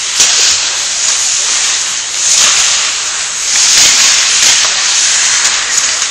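Ice hockey skate blades scraping and carving the ice, a harsh hiss that swells twice as players stop and turn, with a sharp click near the start.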